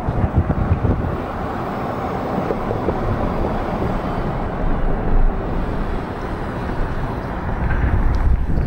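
Steady road-vehicle noise: a dense, even rumble with no voices.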